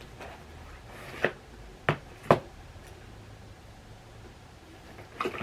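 Three sharp clicks or taps, about a second in and then twice in quick succession, the last the loudest, as objects are picked up and set down over faint room tone.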